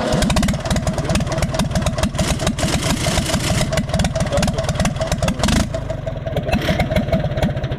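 Universal 550 tractor's diesel engine running just after starting, with a rapid, loud clattering knock; it eases to a less harsh run about two-thirds of the way through. The mechanic suspects a faulty injector, perhaps a nozzle stuck open and delivering fuel constantly.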